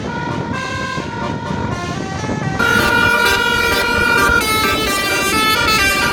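Basuri telolet multi-tone air horn on a bus playing a tune of held musical notes that step from pitch to pitch, growing louder and fuller about two and a half seconds in.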